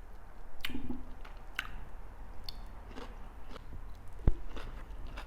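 Close-miked chewing of a mouthful of food, with wet mouth clicks and smacks coming every second or so, and one louder low thump about four seconds in.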